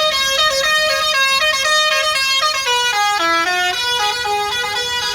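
Telolet multi-tone bus horn playing a tune: a continuous run of loud held notes stepping up and down without a break.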